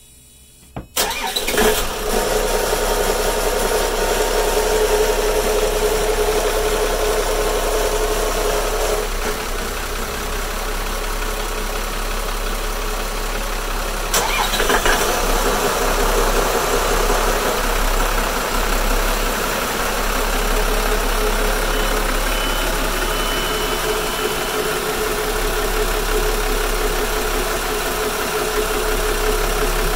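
Volvo Penta KAMD42 four-cylinder marine diesel starting about a second in, catching after brief cranking and settling to a steady idle. About fourteen seconds in a second start adds to the running, and the twin diesels idle together.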